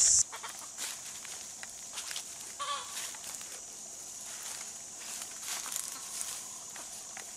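A chicken gives a short cluck about two and a half seconds in, with more faint fowl calls later, over scattered crackle of dry leaves and twigs underfoot and a faint insect buzz.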